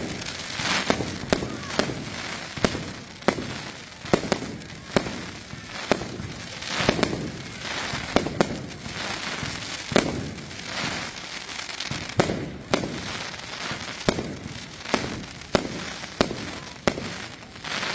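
Fireworks batteries firing in a display: a steady run of sharp bangs, about one every half to three-quarters of a second, with crackling hiss between them.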